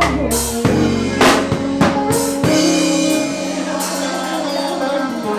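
Live band with drum kit closing a song: four sharp drum hits about half a second apart, then a held final chord ringing out.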